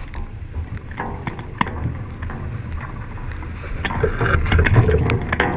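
Wind rumbling on the camera microphone, with scattered clicks and knocks from a sailing skiff's mast, boom and rigging being handled. It gets louder about four seconds in.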